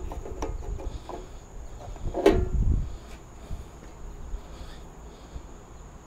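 Sheet-metal electrical parts being handled: a few light clicks and knocks, then one loud clank with a brief ring about two seconds in. Insects chirp steadily in the background.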